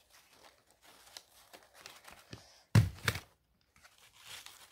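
Paper strips rustling as they are handled and fed into a desk stapler, then the stapler pressed shut with two loud snaps close together a little under three seconds in.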